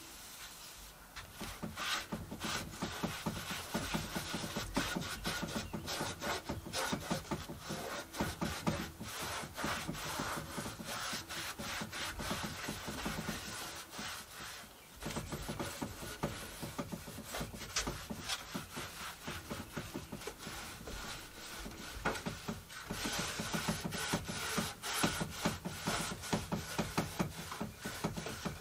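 Rapid back-and-forth scrubbing and wiping of a cloth and pad over a textured plastic car dashboard, with a short pause about halfway through.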